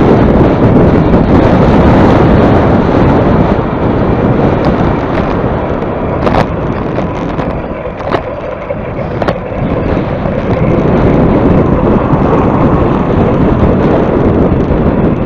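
Heavy wind buffeting the microphone while riding into a headwind, with a few short clicks in the middle.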